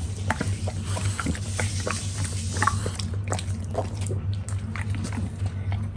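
English bulldog eating apple pieces off the floor, chewing and licking: a string of short mouth clicks and crunches.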